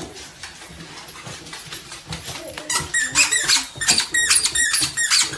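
A dog barking: a quick run of short, high-pitched yaps starting about halfway through, roughly three a second.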